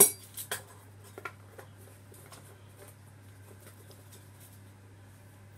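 A measuring spoon taps sharply against a glass jar, once loudly at the start and a couple of lighter times within the next second and a half, as powder is knocked off it. After that only faint handling noise over a low steady hum.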